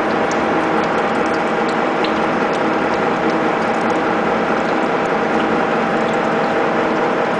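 Gleason hypoid gear generator running, its bladed cutter head cutting the teeth of a steel spiral bevel gear under cutting oil: a steady mechanical whir carrying a hum of several steady tones, with scattered light ticks.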